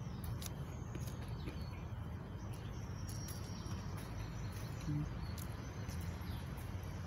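Outdoor background noise: a steady low hum with scattered faint clicks and short chirps, and one brief low tone about five seconds in.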